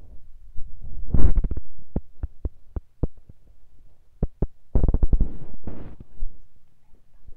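Sharp clicks and knocks close to the microphone: a cluster about a second in, then a run of single clicks about four a second, then two seconds of rustling noise.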